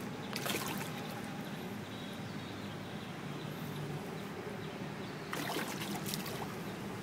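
Water splashing at the surface as a hooked fish thrashes beside the fishing pole, in two bouts: one about half a second in and a longer one from about five seconds in, over a steady outdoor hiss.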